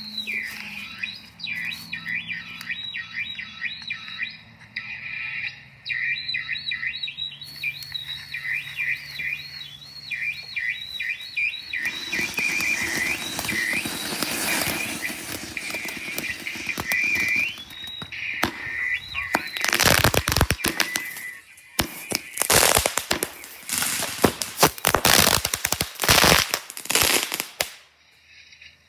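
Warbling, wavering high-pitched tones. About twelve seconds in, a fountain firework inside a carved pumpkin starts hissing as it sprays sparks. From about eighteen seconds it crackles with rapid loud pops, which stop shortly before the end.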